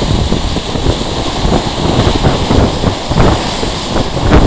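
Wind buffeting the microphone over the rush and splash of water breaking around a ship's bulbous bow under way at sea: a loud, rough, crackling noise.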